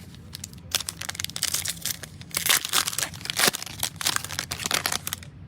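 A foil trading-card pack being torn open and crinkled, a dense run of crackling and tearing.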